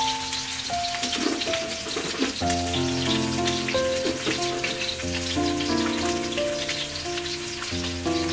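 Fish frying in shallow oil in a steel wok: a steady, dense crackling sizzle, with background music of sustained notes.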